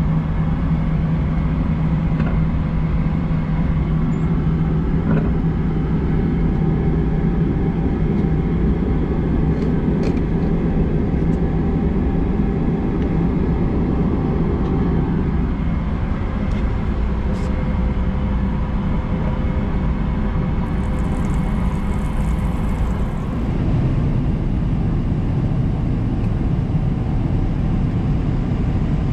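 Steady in-flight cabin noise of a Boeing 777-300ER at cruise: a constant low rumble of engines and rushing air, with a steady hum in the first several seconds and a few light clicks of a paper-wrapped toothbrush being handled near the start.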